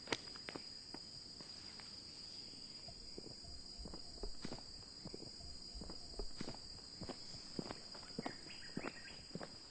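Footsteps of two people walking away, a couple of soft, uneven steps a second, over a steady high-pitched tone.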